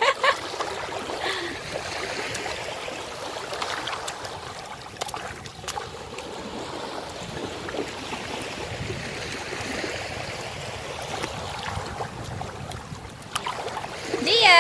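Small surf washing in over the sand in shallow water, a steady rush that swells and eases, with scattered small splashes. A short voice sound comes right at the end.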